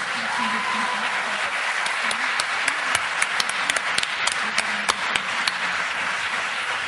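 Audience applauding steadily, with a few sharper single claps standing out in the middle.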